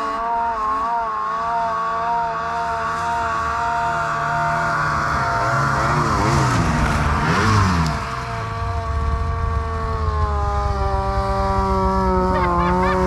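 Snowmobile engines running: one runs steadily close by, while a second snowmobile revs up and down as it passes close about six to eight seconds in, and the engine pitch rises near the end.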